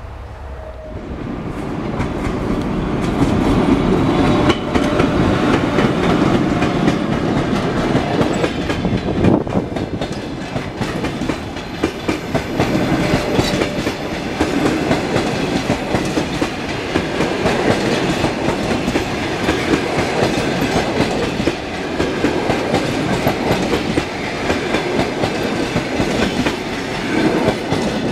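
Passenger coaches of a Russian Railways train rolling past, the wheels clattering over the rail joints in a steady clickety-clack. The noise builds over the first few seconds and then holds.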